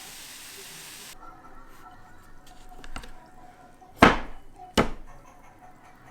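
Steady kitchen hiss, as of food frying or steaming, cuts off about a second in; then a light tap and two sharp, hard knocks less than a second apart, a utensil or dish striking a hard kitchen surface.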